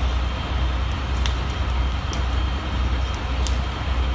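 Steady low rumble of a fire engine's diesel running, with a few sharp crackles from the burning building over it.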